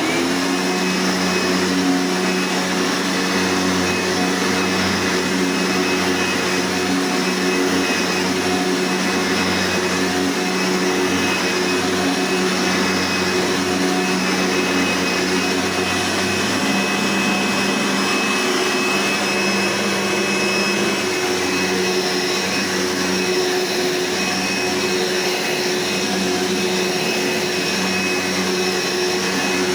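Upright vacuum cleaner switched on right at the start and running steadily: a constant motor hum with a few steady pitches and a rushing airflow.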